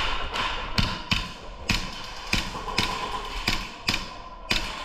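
Airsoft fire: a rapid, irregular series of sharp taps, about eleven in under five seconds, roughly two a second.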